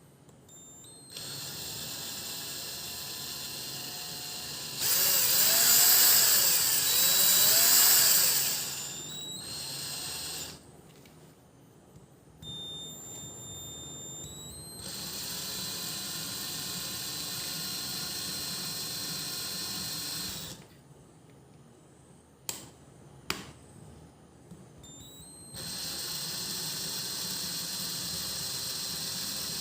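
BLACK+DECKER LD12SP 12V cordless drill driver running in several bursts with pauses between them, its pitch rising and falling in the loudest burst as the variable-speed trigger is worked. Two sharp clicks come during a pause a little past the middle.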